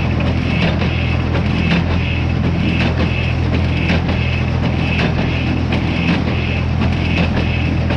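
Small square baler running under power, its plunger stroking about once a second over a steady low drone.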